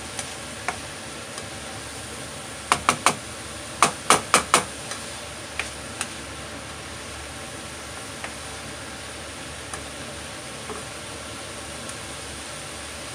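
Sliced cucumber and ground beef sizzling in a frying pan as they are stirred with a plastic spoon. About three seconds in the spoon knocks against the pan three times in quick succession, then four more times a second later, with a few lighter single taps after that.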